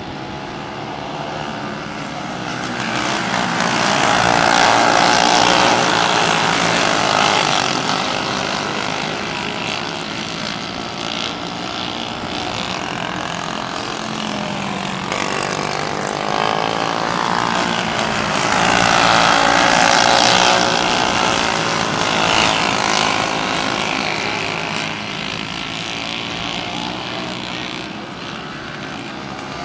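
A pack of dirt-track racing karts running laps, their small engines buzzing and rising and falling in pitch. The sound swells loudest twice, about four seconds in and again around twenty seconds in, as the karts come by.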